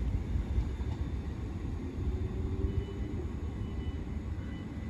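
Siemens Desiro Class 350 electric multiple unit pulling away and drawing off down the line: a steady low rumble that eases slightly toward the end.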